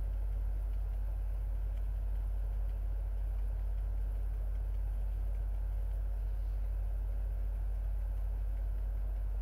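A steady low hum, even in level throughout, with no distinct events.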